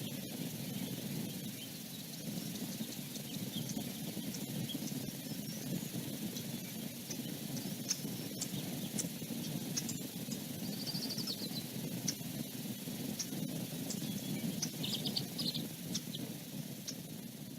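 Steady low outdoor rushing noise with faint scattered clicks, and two short bursts of high twittering bird calls, about eleven and fifteen seconds in.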